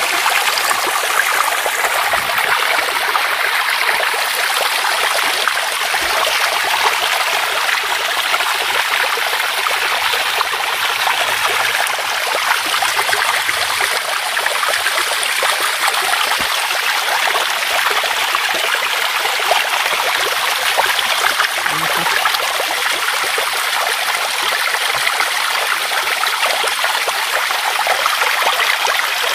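Tap water running steadily from a faucet into a sink basin, splashing over hands being washed under the stream.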